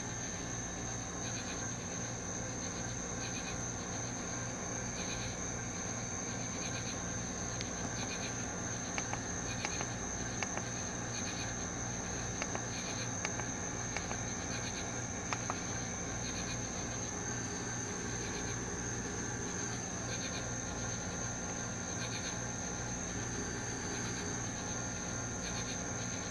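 Insects chirping steadily, with a low pulsing hum underneath and a scatter of light clicks around the middle.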